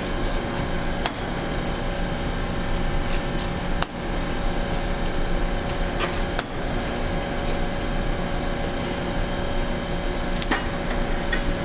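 Steady machine hum with scattered sharp clicks and knocks as concrete debris is cleared from around the platen of a compression testing machine.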